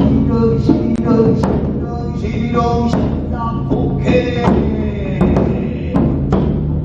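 Music with repeated heavy strikes on a large Korean daebuk drum over a pitched melodic backing.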